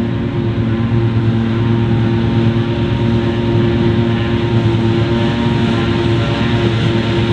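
Heavy diesel farm machinery running steadily, a constant engine drone with several steady pitched tones and no breaks.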